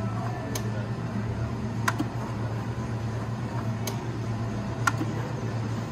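Steady low hum of casino-floor background noise, with a few faint, sharp clicks spread through it.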